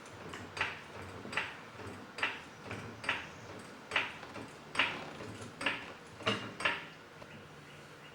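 Hand-tool work on a car's front sway bar link: a series of short, sharp metallic clicks, about one a second, with the last two coming closer together.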